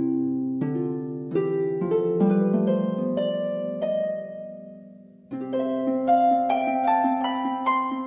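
Background music of plucked strings: a chord, then rising runs of single notes that ring and die away, with a new phrase starting about five seconds in.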